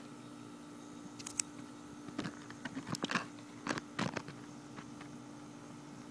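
A cluster of close crackling, crunching clicks for about three seconds, starting about a second in, over a faint steady hum.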